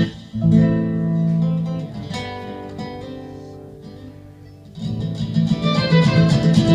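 Nylon-string classical guitar played live in flamenco style. A strummed chord at the start rings and slowly fades, then about five seconds in the guitarist breaks into a fast, louder run of notes.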